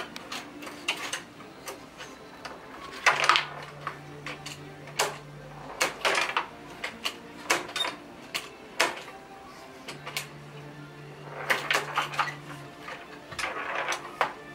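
Small wooden tabletop foosball game in play: the ball and the little players knocking and clacking as the rods are jerked and spun, in irregular clicks and knocks, some in quick flurries.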